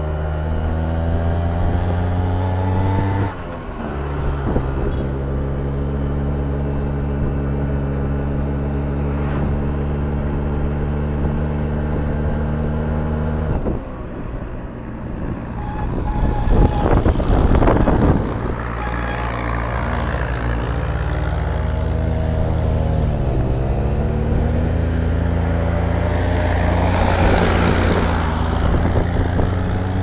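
Engine of the vehicle the camera rides on, pulling along the road. Its pitch climbs at first, then drops at a gear change about three seconds in and again near fourteen seconds, and later dips and picks up twice. Gusts of wind hit the microphone around the middle and near the end.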